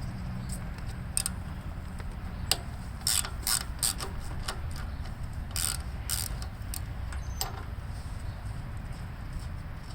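Ratchet socket wrench clicking in a few short, irregular runs, over a low steady hum.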